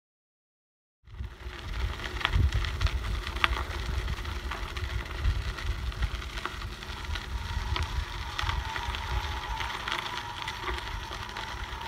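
Mountain bike being ridden over a dirt trail: a steady low rumble broken by sharp knocks and rattles, starting about a second in after silence.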